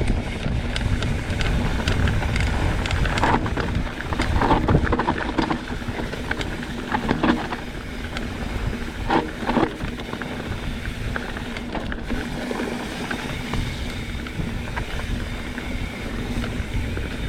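Mountain bike being ridden over a rough trail: wind buffeting the camera microphone as a steady low rumble, with scattered knocks and rattles from the bike jolting over roots and rocks.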